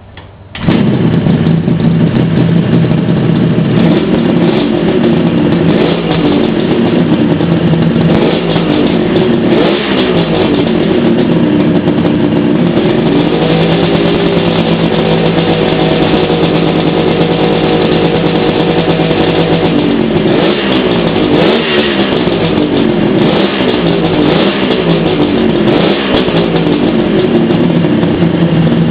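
Kawasaki H1D's three-cylinder two-stroke engine firing up about half a second in on its first start after a rebuild. It then runs with the throttle blipped up and down repeatedly, and is held at a higher speed for several seconds midway.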